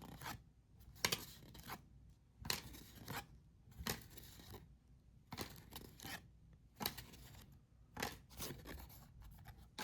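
Trading cards being flipped through one at a time: faint, short papery scrapes as each card slides off the stack, often in pairs, about one every second or so.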